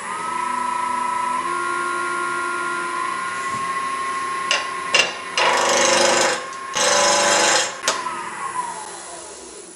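Wood lathe running with a steady motor whine that steps up in pitch as it comes up to speed. A roughing gouge cuts into the spinning square hard-maple blank, rounding it, in two loud stretches of about a second each, after a couple of light ticks. Near the end the whine falls in pitch as the lathe slows down.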